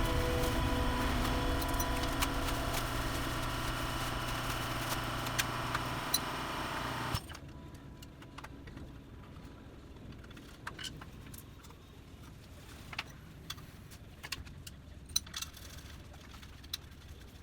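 Small two-stroke scooter engine of a Yamaha Jog ZR Evolution running steadily, then cutting off suddenly about seven seconds in, followed by scattered faint clicks and taps.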